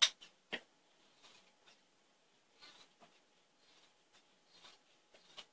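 Scissors cutting quilt fabric: two sharp snips in the first second, then faint scattered rustling and scraping of the fabric.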